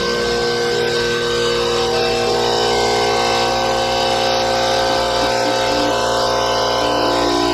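Coleman Powermate 11-gallon, 4 horsepower air compressor running steadily, its motor and pump filling the tank. The valve that had been leaking has just been replaced, and the tank holds pressure with no air leak.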